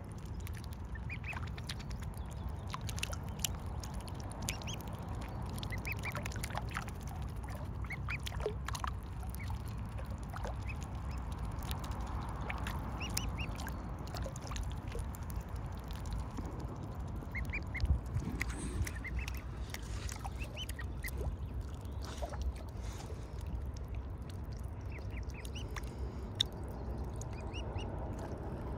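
Mute swan cygnets peeping, many short high calls scattered throughout, over a steady low rumble.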